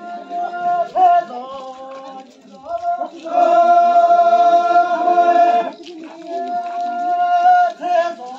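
A group of voices chanting or singing together in unison, with long held notes.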